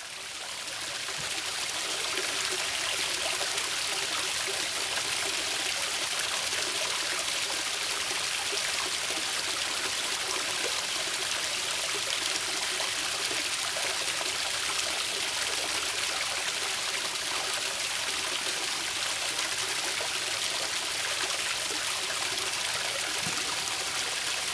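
Shallow creek water flowing and babbling over rocks in a steady rush. It fades in over the first couple of seconds.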